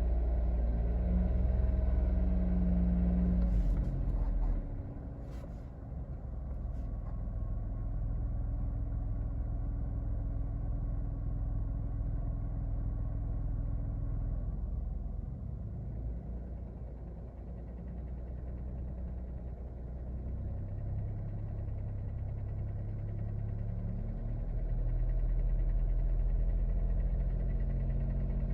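Daihatsu Taft driving at low speed, with a steady low rumble from the car that drops and rises again in level and pitch. A few short clicks sound about four to six seconds in.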